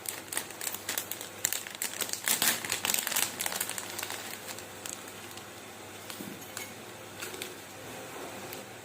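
Rapid, irregular crinkling and crackling, like plastic or paper being handled; dense for about four seconds, then thinning to a few scattered clicks.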